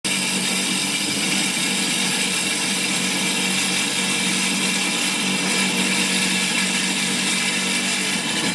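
Wet tile saw cutting a rock into a thin slab: the motor runs at a steady pitch under the hiss of the blade grinding through the stone.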